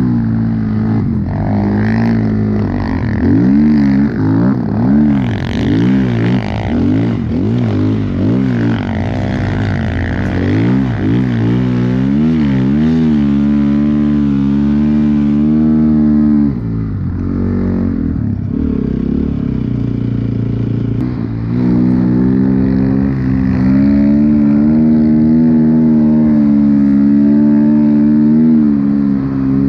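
Snowbike's dirt-bike engine under throttle while riding through powder, its revs rising and falling quickly in repeated surges. Past the middle the revs drop off briefly, then pick up and hold steady and high.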